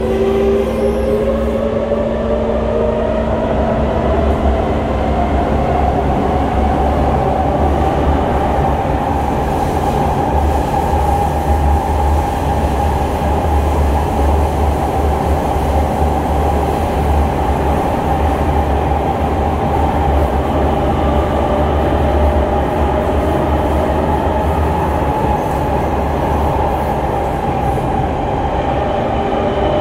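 Kawasaki C151 metro train heard from inside the car as it pulls away. The traction motors' whine rises in pitch over the first several seconds, then holds steady over the running rumble of wheels on rail.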